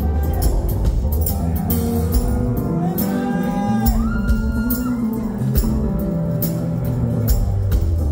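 Live rock band playing with fiddle, electric bass and drums, at a steady beat. A few notes slide up and are held about three to four seconds in.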